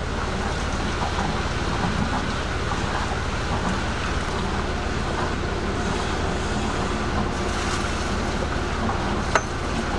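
Sailboat's inboard engine idling, a steady low rumble under a rushing noise, with one sharp click about nine seconds in.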